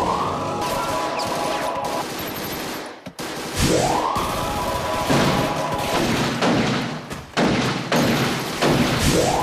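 Edited sci-fi time-travel warp effect: a sweep rising in pitch and settling into a held tone, three times about four to five seconds apart, over rapid crackling like a burst of gunfire.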